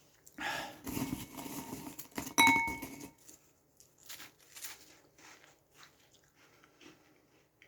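A glass clinks once with a short ring about two and a half seconds in, the loudest sound here, during a rough rushing noise that lasts a couple of seconds; soft scattered clicks follow.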